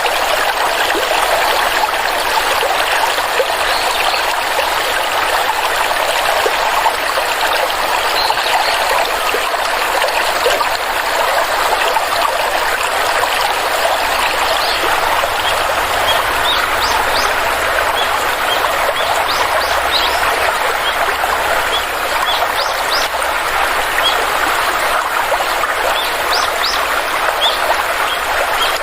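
Small stream flowing and trickling steadily, with short high bird chirps joining in from about halfway through.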